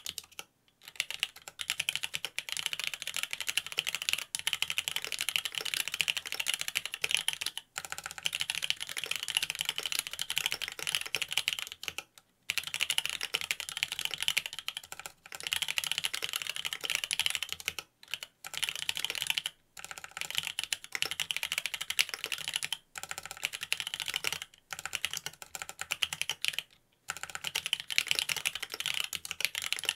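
Typing on a Mont Cervin custom mechanical keyboard with Cherry Wyse Black linear switches, a carbon fiber plate and Key Kobo keycaps: a dense run of key strokes, broken by brief pauses every few seconds.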